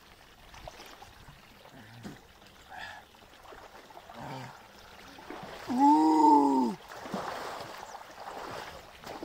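Water pouring from a pipe into a plastic-lined pool, a steady trickle with people wading in it. About six seconds in a person lets out one loud, drawn-out shout that rises and then falls in pitch.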